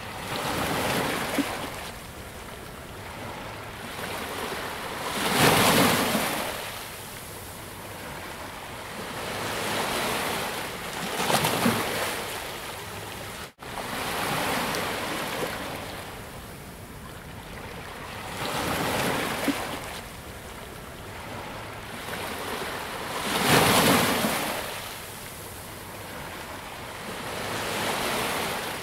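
Ocean surf: waves breaking and washing in one after another, each swelling up and falling away every few seconds. A brief dropout cuts the sound about halfway through.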